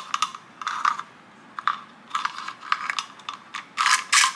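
Handling clicks and light rattles of a polymer Glock magazine fitted with a KRISS extension and its coiled steel magazine spring, as the spring is fed into the extended magazine body. They come in several short bursts, the loudest near the end.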